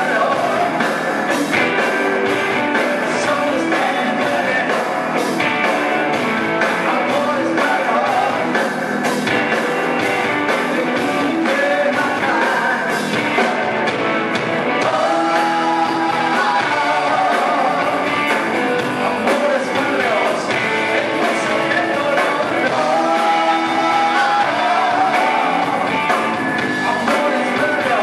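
A live rock band playing: a man singing into a microphone over electric guitar and drums with a steady beat.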